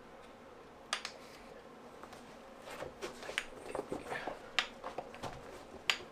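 Scattered light clicks and rubbing as hands work a knobby bicycle tire's bead off its rim, with a few sharp ticks about a second apart.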